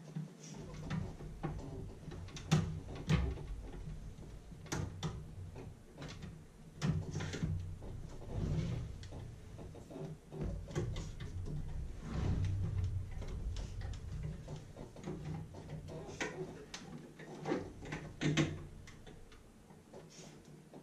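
Irregular clicks, knocks and rattles of the plastic casing and circuit board of an old Sony radio being handled as it is taken apart and its wires pulled loose.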